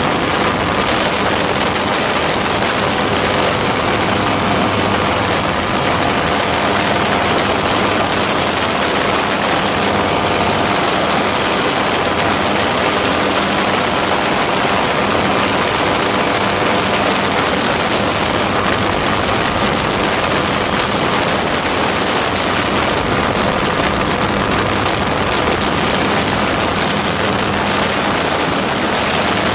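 Hirth F-33 single-cylinder two-stroke engine and propeller running steadily at cruise power, with heavy wind rush over the open cockpit.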